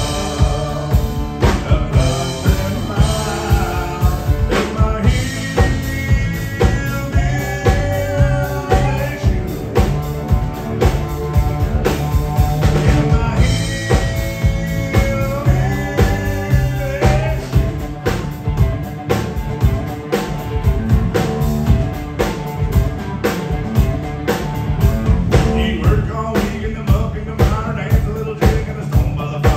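Live country band playing an up-tempo song: a drum kit keeps a steady beat under acoustic and electric guitars and fiddle.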